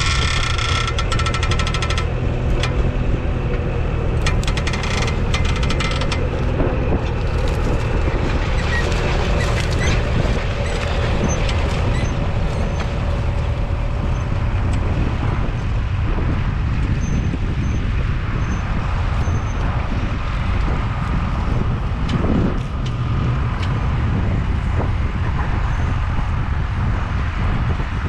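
A Valtra A95 tractor's 4.4-litre four-cylinder diesel engine runs steadily while working a two-furrow reversible plough, with brief clattering in the first few seconds.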